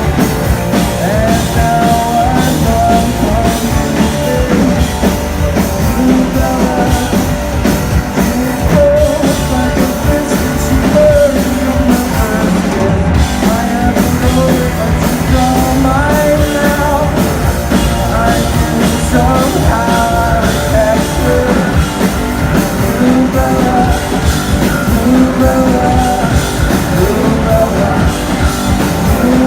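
Live rock band playing a song at full volume, with drums, electric guitars and a sung melody.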